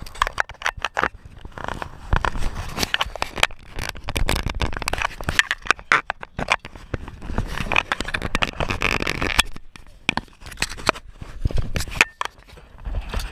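Close handling noise from a chest-worn action camera: a dense run of scrapes, rustles and clicks as the wearer shifts about in a riveted aluminium boat, with quieter gaps about half a second in and again near the end.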